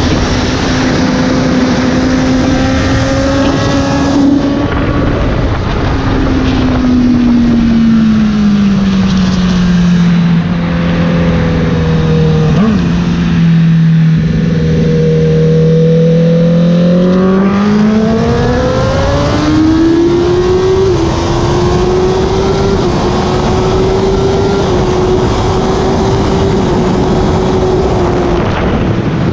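Honda sport bike's engine and wind rush at speed, heard from the rider's seat. The engine note falls as the rider rolls off about five seconds in, stays low through a slow corner, then climbs in steps through the gears back onto a straight and holds high before easing near the end.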